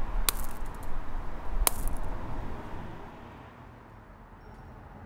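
Two thuds of conkers (horse chestnuts) dropping to the ground, about a second and a half apart, over a steady hiss that fades away after the second one.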